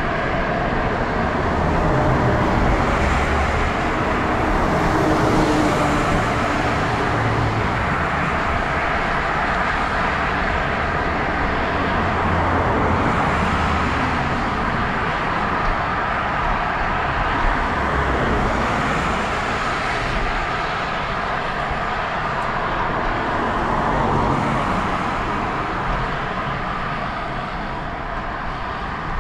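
Wind rush and road noise from riding a bicycle along a public road, with passing traffic swelling and fading every few seconds.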